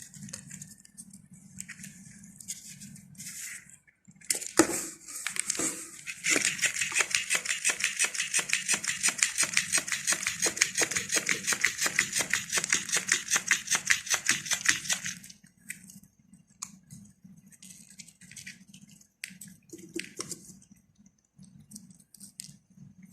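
A cat eating or drinking close to the microphone: a steady run of sharp mouth sounds, about three a second, lasting about nine seconds, with scattered small clicks before and after.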